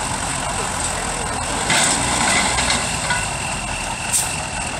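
A small Oliver tractor's engine running steadily as it pulls a weight sled in a tractor pull, with a couple of brief noisy bursts over it.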